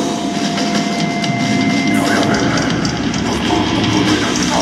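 Metal band playing live: loud distorted guitars and drums, with dense cymbal hits throughout.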